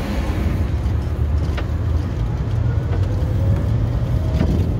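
A VW Beetle-based car driving on the road, its engine and road noise making a steady low rumble, with the engine note rising gently in the second half as it gathers speed. A couple of light clicks sound about one and a half seconds in and again near the end.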